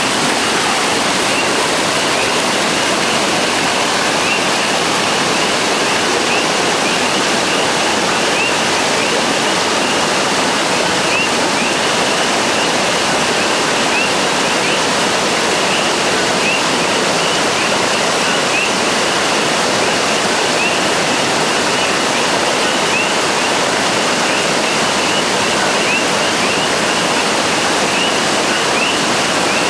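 Rain-swollen river rushing over rocks, a steady loud rush of water. Many short, high chirps repeat over it.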